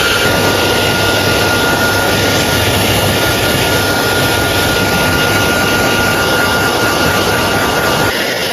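Hand-held hair dryer blowing steadily with a constant whine, switched off near the end.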